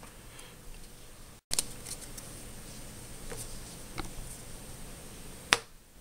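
Trading cards being handled and laid down on a playmat: a few light taps and clicks, then a sharper click about five and a half seconds in. The sound drops out completely for an instant about a second and a half in, where the recording cuts.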